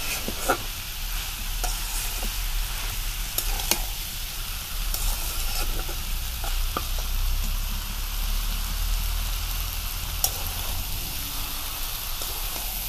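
Kochur loti (taro stolons) and prawns sizzling in a hot karai (wok) while a spatula stirs them, with a few sharp taps of the spatula against the pan, three of them standing out.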